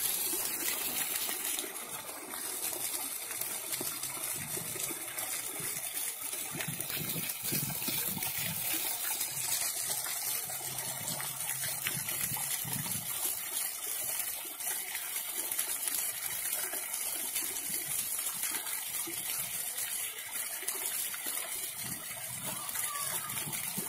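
Thin water jets of a ground-level splash fountain spraying up through metal grates and pattering back onto wet stone paving, a steady hiss.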